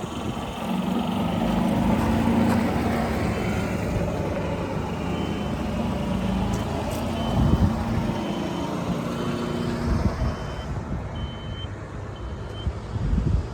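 New Holland 555E backhoe loader's diesel engine running and pulling harder about half a second in, with its reversing alarm beeping steadily a little more than once a second.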